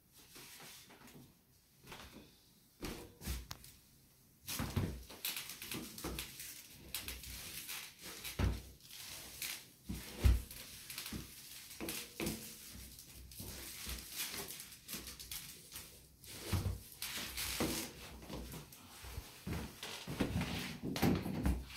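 A person handling shoes and slippers: rustling, scattered knocks and thuds as shoes are put on and footsteps cross a wooden floor, the loudest a single thud about ten seconds in. The first four seconds are nearly quiet.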